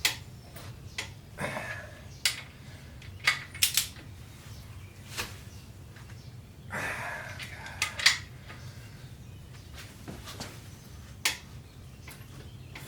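Torque wrench and socket working engine main-cap bolts: scattered sharp metallic clicks and a few short ratcheting rasps over a steady low hum.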